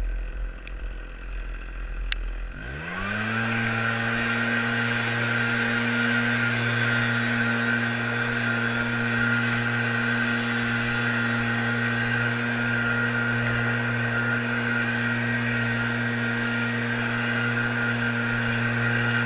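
RedMax small two-stroke engine idling low, then throttled up about three seconds in, its pitch rising quickly and settling into a steady full-speed run.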